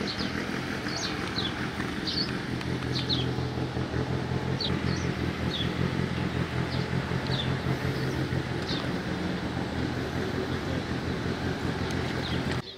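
Rally car engine idling steadily, with short bird chirps over it; the engine sound cuts off suddenly near the end.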